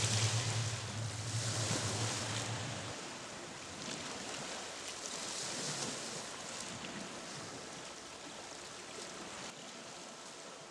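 Sea waves breaking and washing over a rocky shore, the surf swelling and easing every couple of seconds and slowly fading toward the end. A low steady hum sits under it for the first three seconds and stops abruptly.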